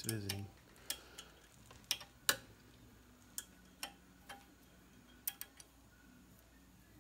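Sharp metallic clicks and clinks, about eight scattered over six seconds, the loudest about two seconds in, as valve springs on a 2.2-litre turbo cylinder head are pressed down with a drill-press spring compressor and the valve keepers are picked off with a magnet.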